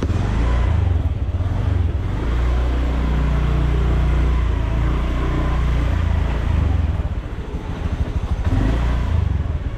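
Motorbike engine running as the bike rides slowly along, its pitch rising and falling as the rider throttles on and off.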